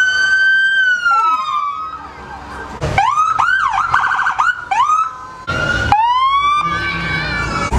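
Police vehicle sirens passing. Two wails overlap and slide down in pitch, then a run of quick up-and-down yelps with a fast warble, a short blast, and another wail that climbs and holds near the end.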